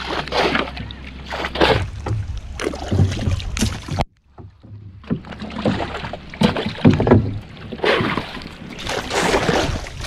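Water splashing and paddle strokes against a small wooden outrigger canoe, in a run of irregular sharp splashes. The sound drops out for about a second a little past four seconds in.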